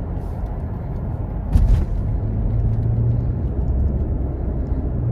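Steady low rumble inside a car driving on a snowy highway, with a short bump about a second and a half in, after which a low steady drone sets in.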